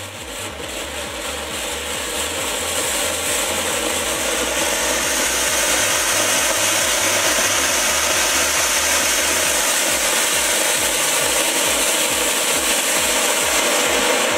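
Giant flowerpot ground-fountain firework burning, spraying sparks with a steady, loud hiss. The hiss builds over the first few seconds, then holds even.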